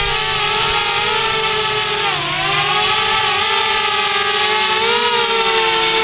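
DJI Spark quadcopter's propellers whining as it comes down and hovers close overhead, a steady multi-tone buzz. The pitch dips briefly about two seconds in and wavers again near five seconds as the motors adjust thrust.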